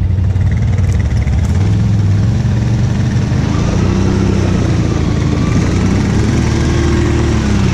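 ATV engines running hard under load, their pitch wavering as the throttle works, while a stuck 570 ATV is towed out of deep mud by another ATV on a tow rope.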